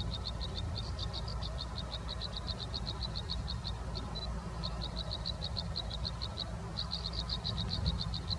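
A rapid high-pitched chirping trill of even pulses, about seven a second, pausing briefly twice, over a steady low rumble.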